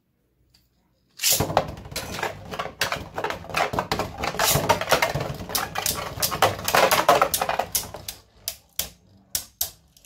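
Two Beyblade Burst spinning tops, Viper Hydrax and Dusk Balkesh, are launched into a plastic stadium about a second in. They spin and clash with a dense, loud rattle of plastic-on-plastic hits, which thins out to separate clacks near the end.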